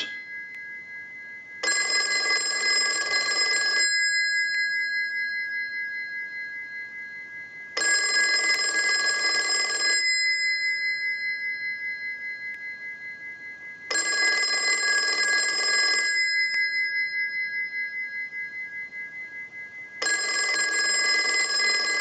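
Automatic Electric AE40 rotary telephone's bell ringer ringing on a test ring cycle: four rings of about two seconds each, one every six seconds or so, each dying away in the pause. The phone is answering incoming ringing properly. A faint steady whine from the open monitoring amplifier runs underneath.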